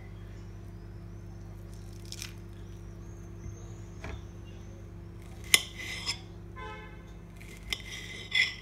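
Knife blade clicking and scraping against a ceramic plate while a peach is sliced: a few sharp clicks in the second half, the loudest about five and a half seconds in, with a brief squeak around seven seconds, over a steady low hum.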